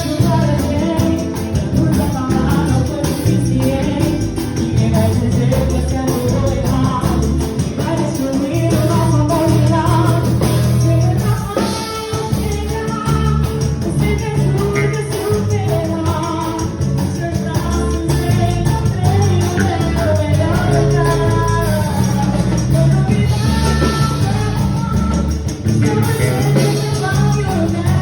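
Pagode samba music with singing over a steady percussion beat with a jingling hand drum.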